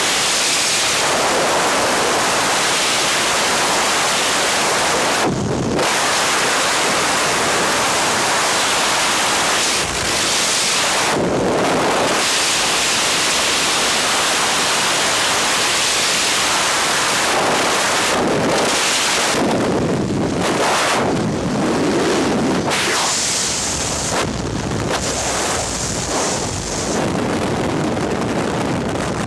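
Loud, steady rush of freefall wind buffeting a helmet-mounted camera's microphone during a skydive, dipping briefly a few times.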